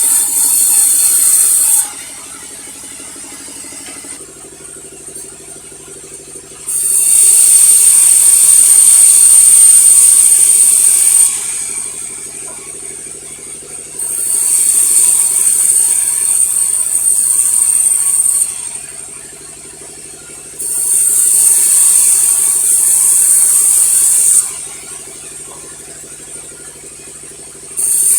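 Sawmill saw cutting through logs in repeated passes, each cut lasting about four seconds. Between cuts the machine keeps running with a lower hum, and the next cut follows every six to seven seconds.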